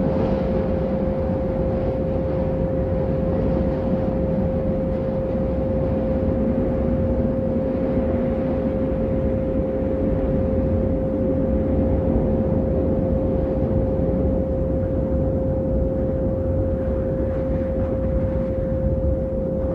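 A single steady pure tone of a meditation 'frequency' track, held unchanged over a low, even rumbling noise.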